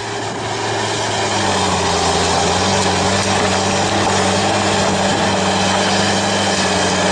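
An engine running steadily, a low even drone that swells up over about the first second and then holds level.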